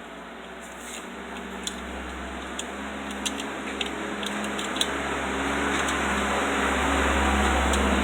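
Small sharp clicks of pliers working on refrigerator defrost wiring, over a steady mechanical hum and hiss that grows gradually louder.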